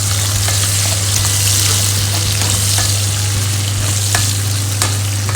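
Garlic sizzling in hot cooking oil in a frying pan as it is sautéed, with light clicks of a spatula stirring it, over a steady low hum.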